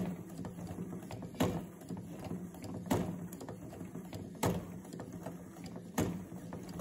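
LEGO WeDo 2.0 motor running steadily, driving a cam made of LEGO pieces that lifts and twists a brick-built ballerina. A sharp plastic knock comes about every one and a half seconds, once per turn of the cam, five times in all.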